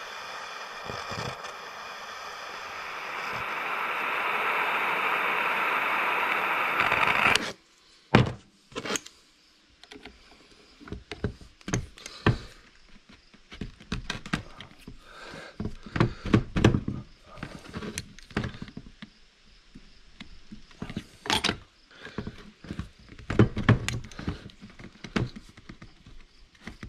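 An electric heat gun blows steadily for about seven seconds, warming a threadlocked bolt so that the Loctite softens, then switches off abruptly. After that a small hand ratchet clicks and knocks irregularly as it is worked against the bolt, which does not come loose.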